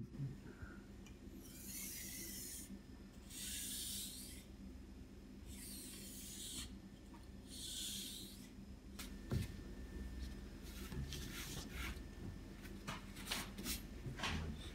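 Japanese kitchen knife drawn across a water whetstone in four slow strokes of about a second each, a rasping grind. In the last few seconds the grinding gives way to a run of light clicks and taps.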